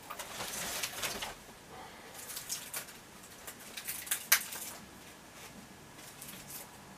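Scattered rustling and light knocks of someone moving about and handling things in a small room, with one sharp click a little past four seconds in.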